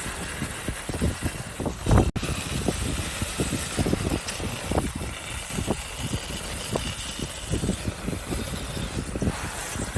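Volcanic eruption rumbling, with a rapid, irregular series of low thumps over a steady hiss; a louder thump comes about two seconds in, followed by an abrupt cut.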